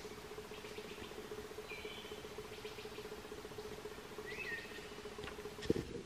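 Raccoon eating bird seed: small clusters of faint crunching clicks, over a steady hum. Brief high chirps come three times, and a single low thump near the end is the loudest sound.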